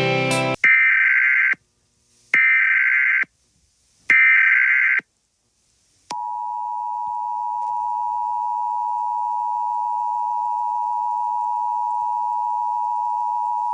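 Emergency Alert System signal: three buzzing bursts of the SAME digital data header, each about a second long with short gaps between them, then the steady two-tone attention signal held for about eight seconds.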